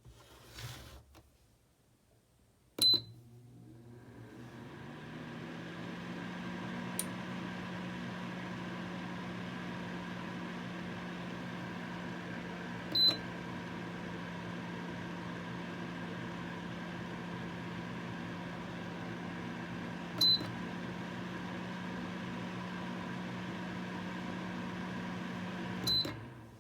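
Ceramic space heater beeping as it is switched on, its fan spinning up over a couple of seconds into a steady hum with airflow hiss. It beeps twice more while running, and a last beep near the end stops the fan.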